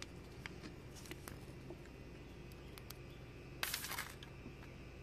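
Small twig fire crackling faintly with scattered light pops. About three and a half seconds in, a brief rush of water poured from a plastic bottle into a tin-foil cup set over the flames.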